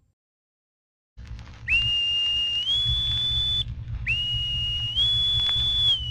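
Boatswain's pipe (bosun's call) sounded over the ship's loudspeaker: two calls, each a high note that steps up to a higher one and holds, the second starting to fall away near the end, over a low rumble. The pipe calls the crew's attention ahead of a shipboard announcement.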